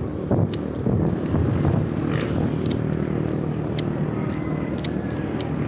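A motor vehicle's engine running steadily, with light footsteps on asphalt tapping through it.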